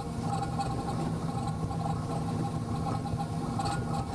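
Steady mechanical running noise from a car on a test rig: an even low hum with a fainter mid-pitched whine above it.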